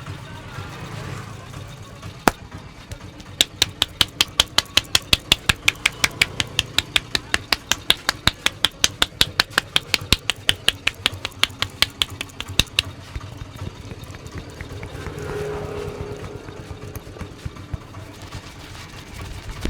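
A barber's hands striking the head in fast percussive massage: an even run of sharp slaps at about five a second for some nine seconds, after a single strike near the start.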